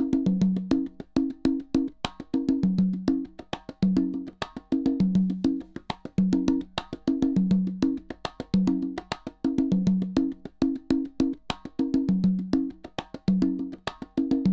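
Speaker-setup test signal: a repeating percussive rhythm of sharp clicks and short low, wood-block-like notes, played from the left and right channels in reverse phase to check speaker polarity.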